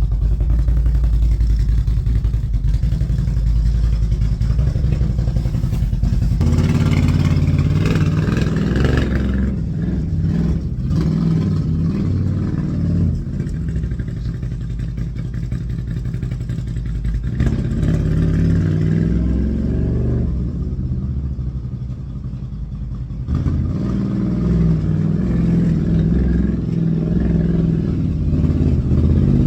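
An engine running steadily, its sound shifting several times with a brief rise in hiss about a quarter of the way in.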